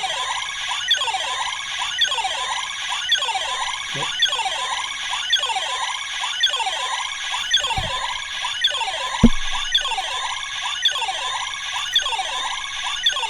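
Bandai DX Bugster Buckle toy belt playing its special-attack standby loop through its small speaker after the B button is pressed: a repeating electronic alarm-like tone of falling pitch sweeps, about two a second. A few light handling knocks sound partway through.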